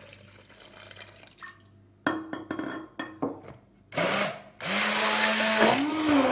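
Electric blender blending kiwi with lemon juice concentrate. A run of knocks and clatters comes first, then a short burst of the motor about four seconds in, then the motor runs steadily, its pitch rising and dropping again near the end.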